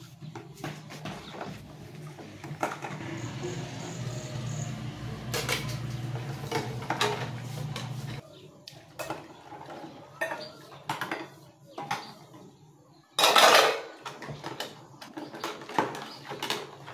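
Metal plates and pots clinking and knocking against each other and the basins as they are washed by hand in water, in many short irregular clinks. One louder half-second burst of noise comes about three-quarters of the way through.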